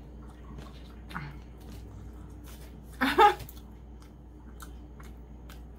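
A woman makes a short wordless vocal sound about three seconds in, the loudest thing here, and a fainter one about a second in. Small scattered clicks of eating and handling food run between them.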